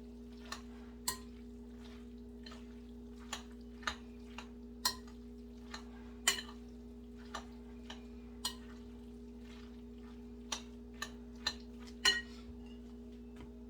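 Kitchen knife cutting broccoli on a cutting board: irregular single sharp knocks, one every half second to second and a half, over a steady low hum.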